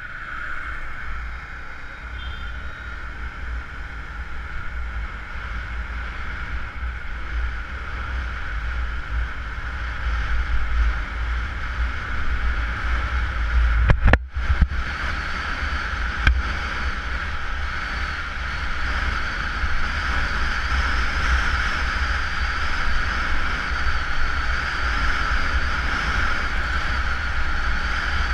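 Honda CBR motorcycle running along at road speed, heard through heavy wind buffeting on a bike-mounted GoPro, a steady rushing rumble that slowly grows louder. About halfway through it breaks off for a moment at an edit, then resumes.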